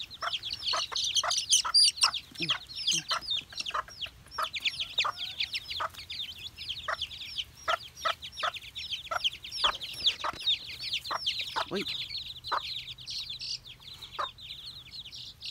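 A brood of young chicks peeping constantly, in many rapid, overlapping falling chirps, with the mother hen's short clucks among them.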